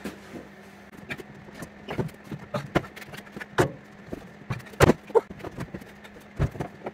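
Heavy steel forging-press frame knocking and clunking as it is manhandled and set down on a metal stand: a string of irregular metal knocks, the loudest about five seconds in, and a low thud near the end, over a faint steady hum.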